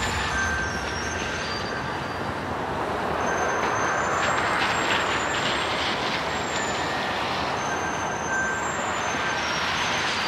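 Steady traffic noise: the even hiss of tyres on a wet, slushy road, swelling and easing slowly as vehicles pass.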